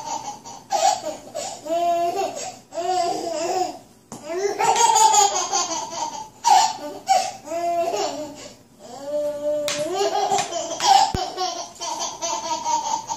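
A baby laughing, with high-pitched giggles and squeals coming in repeated bursts and short pauses between them.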